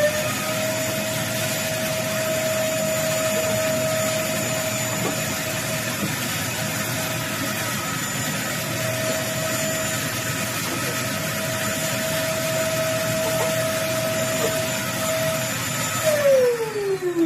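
Vacuum cleaner running steadily with a high motor whine, sucking dust out of a fridge's ventilation grille; it is switched off near the end, its whine falling in pitch as the motor winds down.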